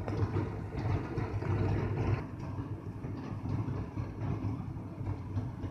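Masala gravy bubbling and sizzling in oil in a kadhai, the masala cooked until it has released its oil. The sizzle fades about two seconds in, over a steady low hum that carries on throughout.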